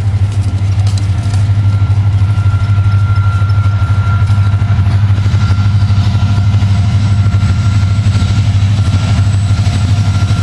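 Diesel locomotive of an approaching Norfolk Southern freight train, its engine a loud, steady low rumble, with a faint thin high whine above it.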